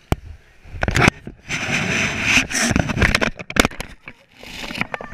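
Knocks, clicks and rubbing against a chest-mounted GoPro's housing, with fabric brushing over it in two longer rushing bursts in the middle.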